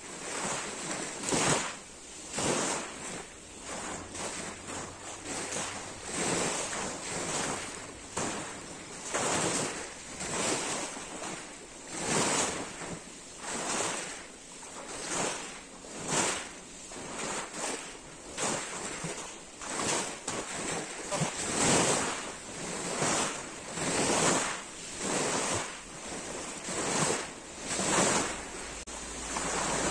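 Small sea waves washing up onto a pebble beach, surging and drawing back one after another about every second or so.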